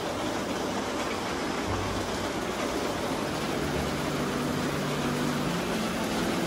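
Steady hiss of heavy rain, with a faint low hum underneath.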